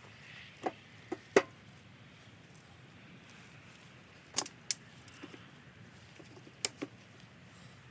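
A handful of sharp knocks and clacks in small clusters, two or three close together each time, a few seconds apart, over a faint steady hiss.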